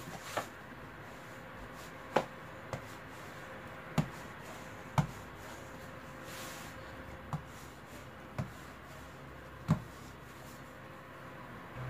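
Wooden rolling pin rolling out laminated pastry dough on a granite countertop, with about eight sharp knocks at irregular intervals of one to two seconds as the pin bumps the stone.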